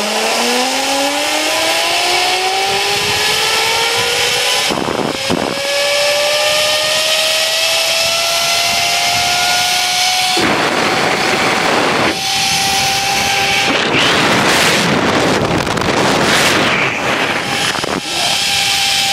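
Zip line trolley pulleys whining along the cable, the pitch rising steadily for the first ten seconds or so as the rider gathers speed and then holding steady. Wind rushes over the microphone, in heavy gusts in the second half.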